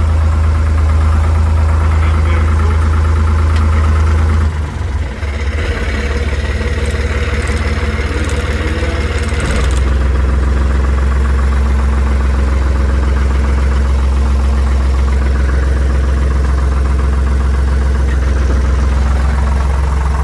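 Carraro 6.100-4 tractor's three-cylinder engine idling steadily, which the owner believes is a Deutz. About four seconds in the steady note breaks up and dips for several seconds, then settles into a slightly lower steady idle.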